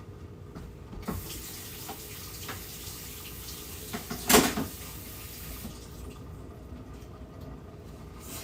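Kitchen tap running into a sink for a few seconds, then shut off about six seconds in, with a single knock about four seconds in.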